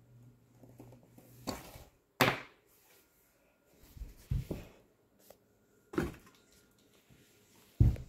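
A series of sharp knocks and thumps, about five over several seconds, the loudest about two seconds in, over a faint low hum that stops about a second and a half in.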